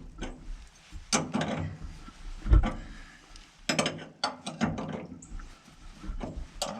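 Irregular metallic clicks and knocks from a screw-type hinge pin removal tool being wound and handled on an early Ford door hinge as the pin comes out easily, with one heavier thump about two and a half seconds in.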